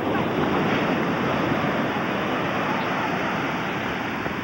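Ocean surf breaking and washing up the shore, a steady rush of water.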